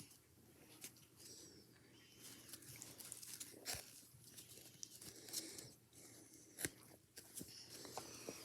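Faint rustling and sliding of trading cards being flipped through by hand, with a few sharp clicks as cards knock together.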